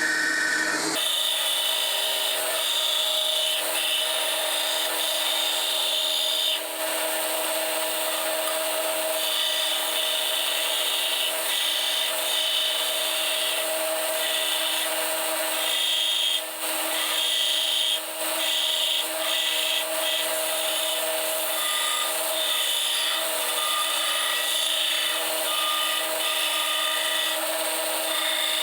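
An electric grinding tool running steadily while shaping a 1084 steel blank, roughing out a knife blade. A higher grinding hiss comes and goes as the steel is pressed to the tool and lifted off.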